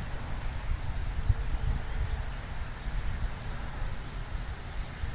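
Outdoor background: wind rumbling on the microphone, with insects trilling steadily and high in the background.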